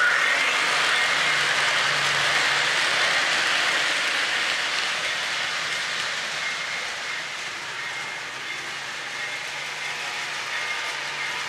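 O-gauge model freight train rolling on three-rail track: a steady rolling whir of wheels on rail. It is loudest at first as the cars pass close by, eases off about two-thirds of the way through, and grows again near the end as the train comes back.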